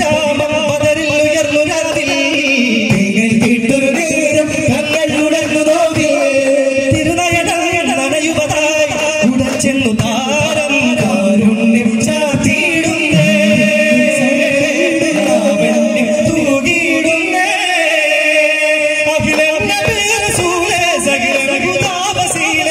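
Daf muttu performance: a man sings a devotional song while a troupe beats daf frame drums in unison to a steady rhythm. The drumming pauses briefly about three-quarters of the way through, then resumes.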